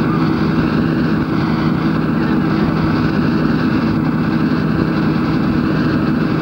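Heavy truck diesel engine idling, a steady drone.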